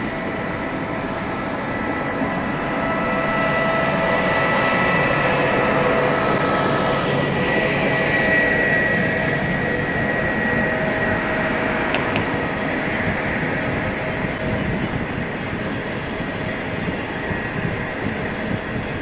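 Electric-hauled passenger train of green coaches rolling past at speed: a dense, steady rail rumble with several held whining tones. The sound swells to its loudest about eight seconds in and then slowly fades.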